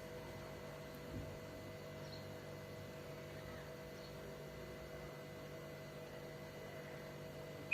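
Faint steady electrical mains hum with a soft knock about a second in. The washing machine does not start its cycle: its door lock has not engaged.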